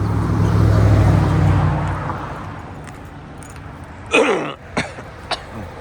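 A passing motor vehicle: its engine hum swells and then fades over the first two seconds or so. About four seconds in comes a short, loud sound that falls in pitch, followed by two sharp clicks.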